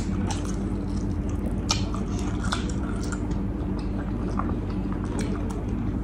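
Close-up eating sounds of saucy Korean spicy fried chicken wings: chewing, biting and wet mouth smacks as meat is sucked off the bones and sauce licked from fingers, a few sharp clicks scattered throughout. A steady low hum runs underneath.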